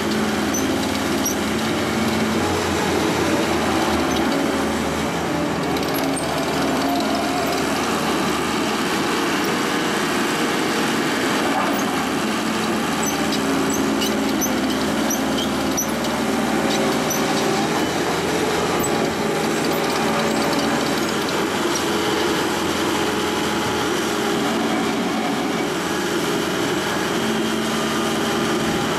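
ASV 2810 tracked skid steer's Isuzu engine running steadily, with no change in speed.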